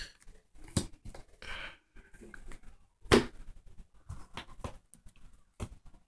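Trading cards in sleeves being handled and set down on a playmat: scattered soft taps and rustles, with a sharper tap about three seconds in.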